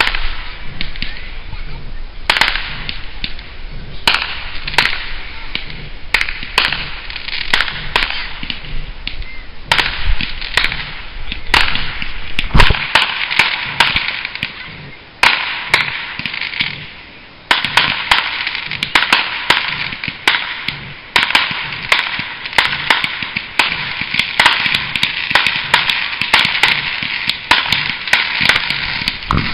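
Fireworks going off: a quick, irregular series of sharp bangs and cracks over a steady crackling hiss, the bangs coming thicker from about halfway through.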